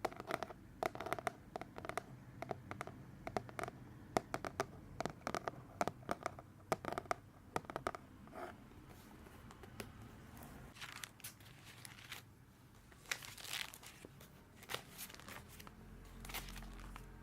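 Paper notebook handled close to the microphone: crisp paper clicks and rustles, dense for the first half, then a few slower, scratchy paper strokes.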